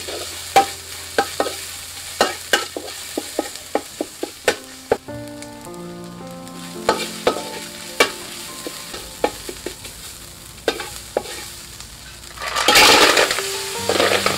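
A metal spatula scrapes and taps sharply against a steel wok while paste fries and sizzles in the oil. Near the end there is a loud rush of sizzling and clatter as a batch of wild snails goes into the hot wok.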